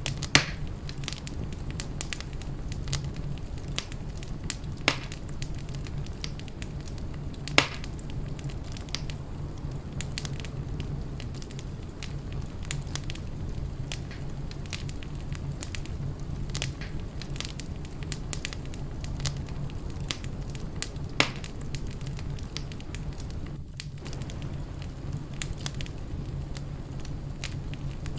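Wood fire burning in a fireplace, crackling steadily over a low rumble, with a handful of sharp, loud pops scattered through it.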